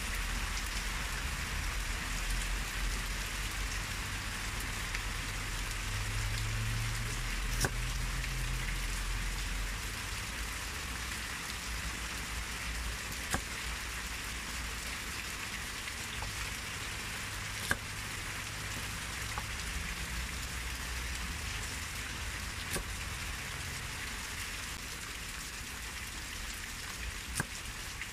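Steady hiss of rain, with a sharp knock four or five times as a cleaver chops the tips off snail shells on a wooden board.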